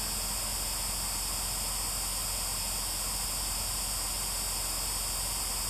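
Steady static hiss, even and unchanging.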